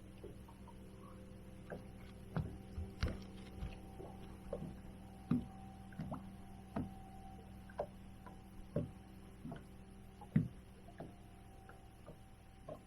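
Small waves lapping and slapping against a boat hull in short, irregular taps, about one a second, over a steady low hum.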